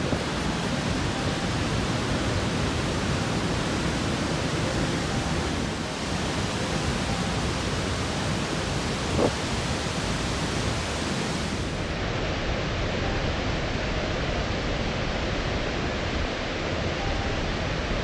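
Niagara Falls' water crashing down close by: a steady, dense roar of falling water. There is one short sharp tick about halfway through.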